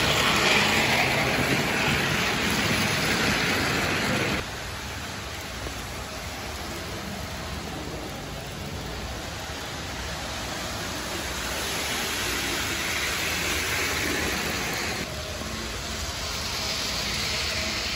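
Model trains running on track. A large-scale model diesel locomotive and its cars pass close by with a steady whirring rumble and hiss, then about four seconds in the sound drops suddenly to a quieter, steady whir and hiss of smaller model trains running.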